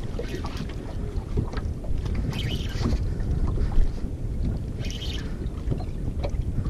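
Wind buffeting the microphone over water sloshing against a small open boat's hull, with brief hissing bursts about two and a half and five seconds in.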